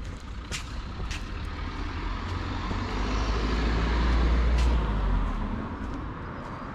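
A motor vehicle driving past close by: a low engine rumble and tyre noise swell to a peak about four seconds in, then fade away.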